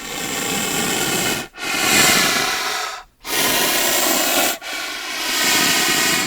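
An animal making four long, breathy hissing sounds in a row, each over a second long, with short breaks between.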